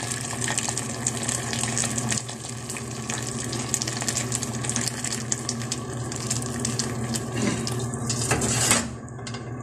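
Hot water pouring in a steady stream from a kettle into a pan of tomato-based chicken stew, splashing into the sauce; the pour stops near the end.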